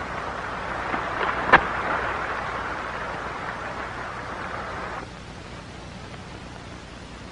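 Water splashing, with one sharp knock about a second and a half in. The splashing stops abruptly about five seconds in, leaving only a faint hiss.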